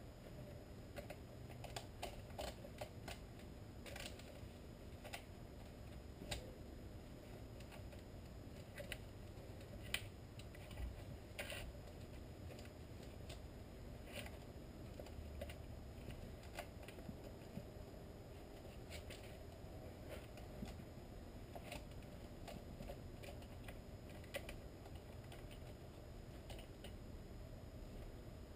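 Faint, irregular metallic clicks and light rattles of a saw chain being handled and fitted by hand onto a chainsaw's bar and drive sprocket.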